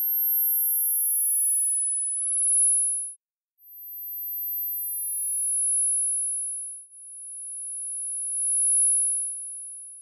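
Synthesized high-pitched pure sine tones between about 10 and 13 kHz, made as tinnitus neuromodulation sound. One or two steady tones sound at a time, each swelling in and fading out over a few seconds, with a short break about three seconds in.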